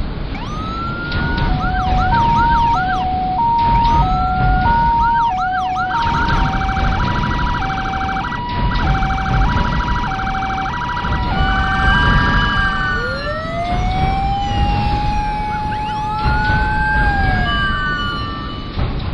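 Several emergency-vehicle sirens sounding together, among them an ambulance's two-tone hi-lo siren stepping between two pitches about every two-thirds of a second. Short rising whoops come in early, a fast warble runs through the middle, and long slow wails rise and fall near the end, all over a low rumble.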